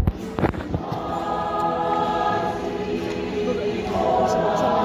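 Mixed choir singing sustained chords that begin about a second in and swell fuller and louder near the end. A few sharp clicks come just before the singing starts.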